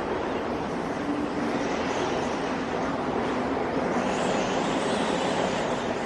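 A steady rushing noise with no speech or music.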